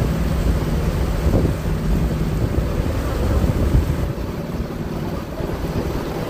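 A tour boat's engine running steadily while underway, a low hum, with wind buffeting the microphone; it eases a little about four seconds in.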